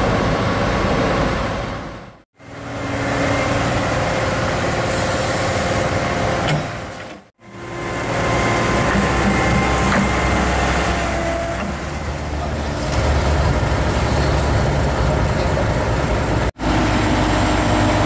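Komatsu PC200-8 excavator's diesel engine running steadily, a heavy low rumble, with the sound dropping out abruptly three times.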